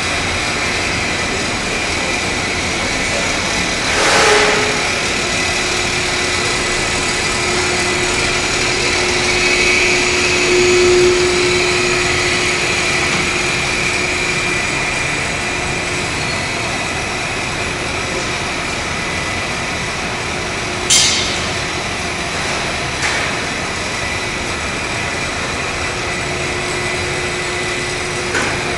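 Textile fabric compactor machine running steadily: a constant mechanical drone with a high whine and a lower hum that comes and goes. A brief louder rush comes about four seconds in, and a sharp click about twenty-one seconds in.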